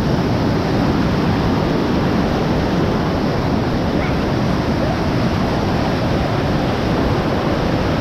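River floodwater rushing through a sluice: a steady, loud rush of water.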